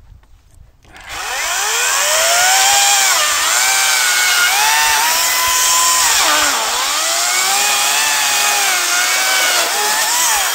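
Parkside PKSA 40-Li A1 dual-battery cordless chainsaw spinning up about a second in and cutting through a spruce log. Its electric motor whine rises at the start, then dips in pitch several times as the chain bites into the wood under load, and cuts off sharply at the end.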